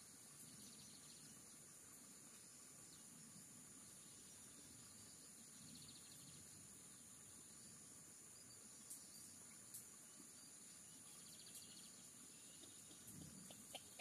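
Near silence: faint outdoor ambience with a steady high-pitched insect drone, and two faint clicks about nine and ten seconds in.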